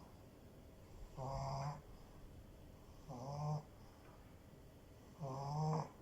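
French bulldog snoring: three short snores about two seconds apart, each lasting just over half a second.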